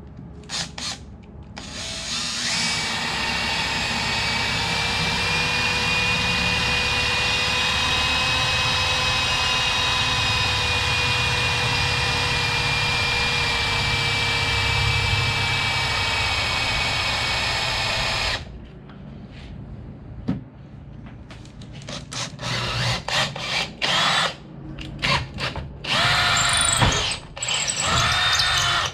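Power tool working a block of hardwood: it runs steadily at full speed for about sixteen seconds with a high whine, stops abruptly, then is run in a string of short bursts that spin up and down.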